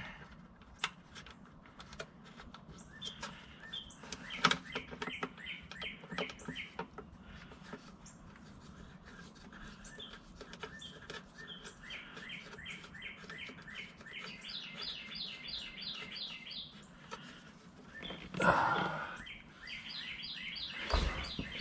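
A songbird singing in runs of quick, repeated high chirps, about four a second. Faint scattered clicks and taps, and a brief louder rustle of noise near the end.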